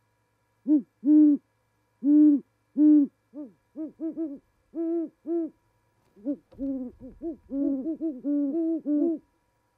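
A pair of great horned owls hooting in duet: a deep, rhythmic run of hoots, then two voices overlapping in quick hoots in the second half as the pair mates on the perch. A brief low thump and rumble about six and a half seconds in, as one owl lands on the other.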